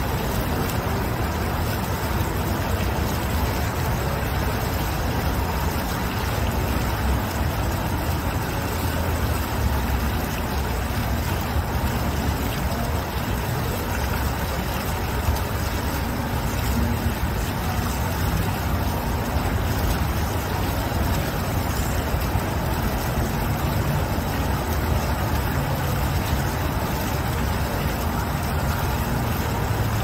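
A single foaming fountain jet splashing down into its pool: a steady, even rush of falling water.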